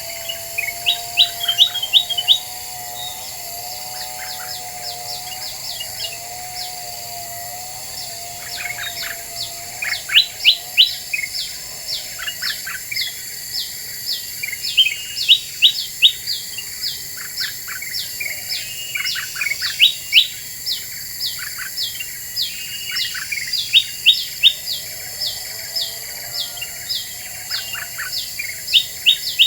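Kutilang emas, a bulbul, singing a busy series of short, sharp, down-slurred chirps in quick runs, played as a lure call to draw in wild birds. A lower wavering tone sounds beneath the chirps for the first several seconds and again near the end.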